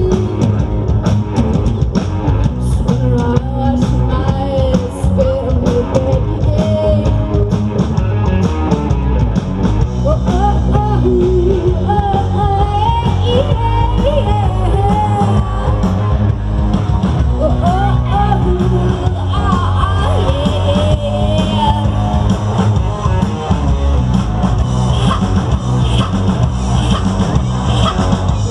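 Live rock band playing through PA speakers: singing over electric guitar, bass and drum kit.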